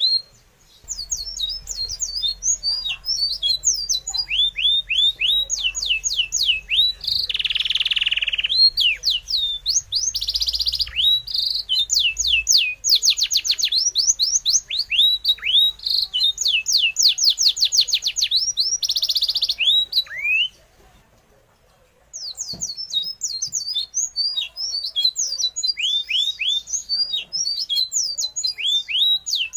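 Bird chirping in quick runs of short, high, falling chirps, with a few harsh squawks mixed in; it breaks off for about two seconds about two-thirds of the way through.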